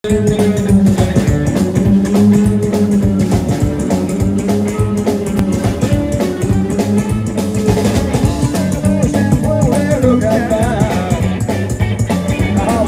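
Live rockabilly band playing: electric guitars and drums, with voices singing over them, the singing standing out more in the second half.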